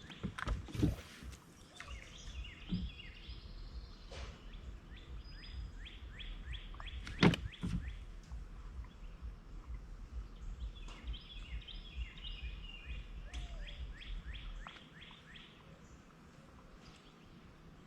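Outdoor birdsong: a bird sings runs of quick descending chirps over a low steady rumble, which cuts off about three-quarters of the way through. A few sharp clicks come through, the loudest about halfway.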